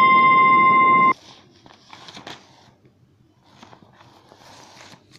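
A loud, steady ringing tone that cuts off suddenly about a second in, followed by faint rustling and light taps.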